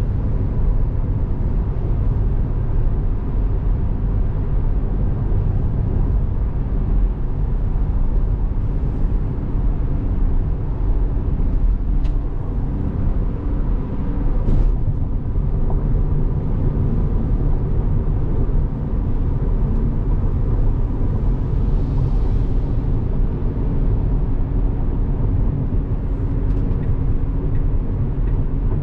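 Steady low road and tyre rumble inside the cabin of a moving Tesla Model 3, with a couple of faint clicks about halfway through.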